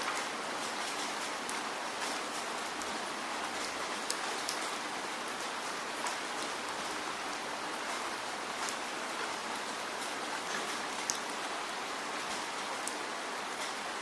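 Heavy rain falling: a steady hiss of rain, with scattered sharper ticks of single drops striking close by.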